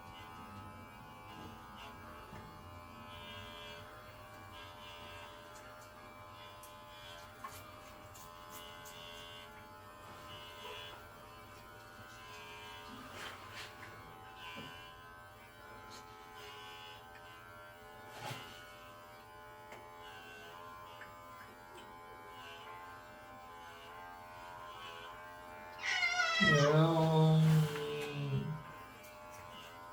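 Electric pet hair clippers buzzing faintly during a cat's grooming, then near the end the cat gives one long, loud meow that falls in pitch.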